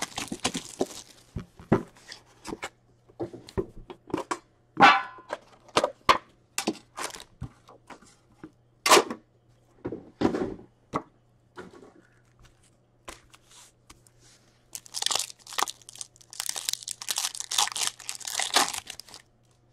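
Scattered knocks and clicks from handling an open metal hockey card tin and its packs, then a card pack's wrapper torn open and crinkled in the hands near the end.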